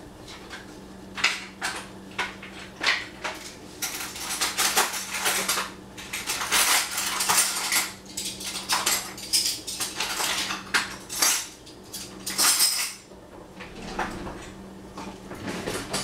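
Kitchen utensils and dishes clinking and scraping off the stove in an uneven run of short bursts, busiest in the middle and tailing off near the end.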